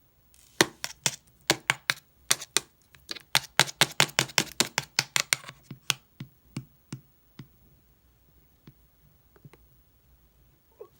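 Slime being pressed and poked by hand, giving a quick run of crisp pops and clicks, several a second. After about six seconds they thin out and grow fainter.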